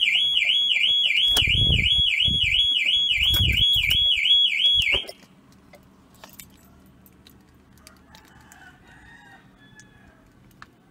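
Ford Ranger anti-theft alarm siren warbling up and down about three to four times a second, set off by the unprogrammed duplicate key. It cuts off abruptly about five seconds in, with a few dull low thumps under it before then.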